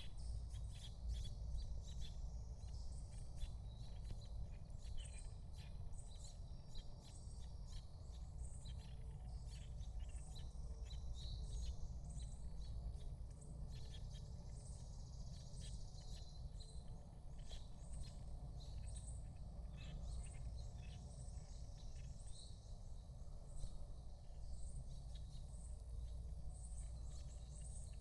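Outdoor ambience: birds chirping in frequent short calls and an insect calling in a high pulse that repeats about once a second, over a steady low rumble.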